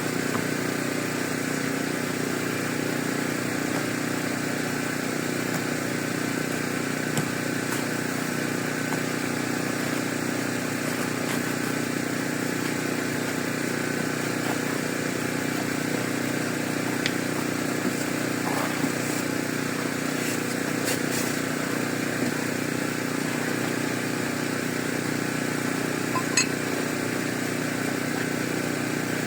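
A motor or engine running steadily, a constant hum, with a few faint clicks.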